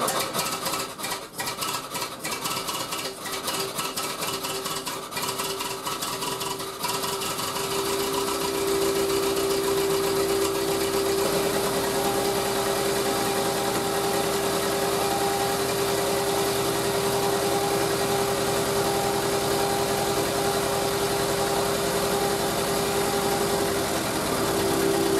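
Ford Model T four-cylinder side-valve engine running, first at a slow uneven clatter, then about seven seconds in speeding up and holding a steady, faster run. It is held up at speed with the headlights on so that the generator's third brush can be set to the proper charging rate.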